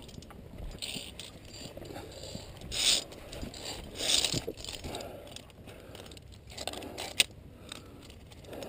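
Steel via ferrata carabiners clinking and scraping along a steel safety cable as a climber moves hand over hand, with a few short scrapes and a sharp metal click about seven seconds in.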